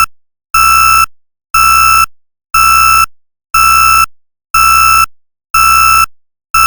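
Loud electronic alert beep, a buzzy high tone repeating once a second in evenly spaced half-second beeps, like an emergency alert signal.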